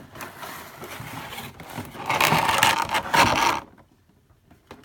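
Box packaging scraping and rustling as a die-cast model airplane is slid out of its box, loudest about two seconds in for over a second, then a few faint clicks.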